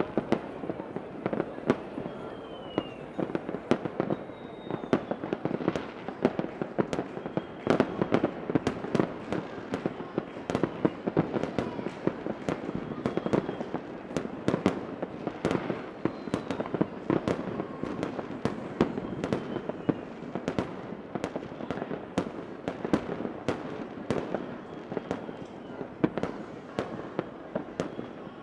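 Fireworks going off continuously: a dense, steady crackle of pops and bangs, many a second, with no pause.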